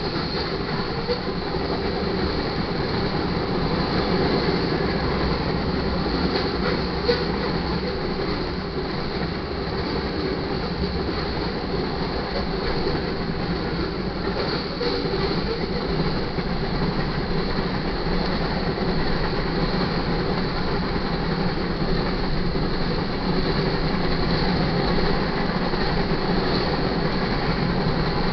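Grain train's freight cars rolling steadily past, a continuous rumble and clatter of steel wheels on rail with a faint steady high whine.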